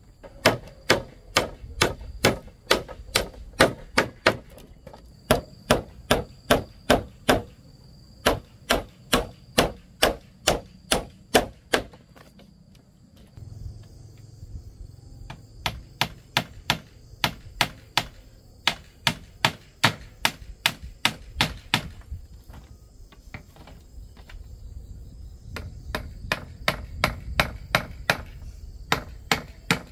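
Rapid, steady chopping strokes, about three a second, with a brief pause about twelve seconds in before the strokes resume.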